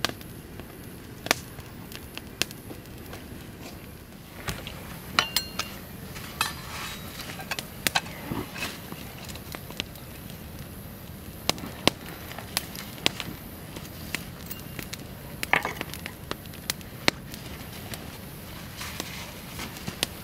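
Campfire burning damp wood, crackling with irregular sharp pops and snaps over a steady low hiss.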